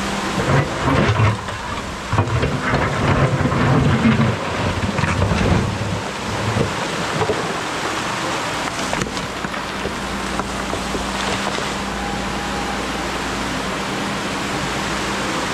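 Menzi Muck spider excavator's engine running with a steady hum, with heavy irregular rumbling and knocking of stones being shifted during the first six seconds or so.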